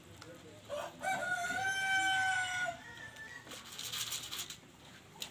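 A rooster crowing once, a long drawn-out call that rises, holds and then falls away, followed about a second later by a short burst of noise.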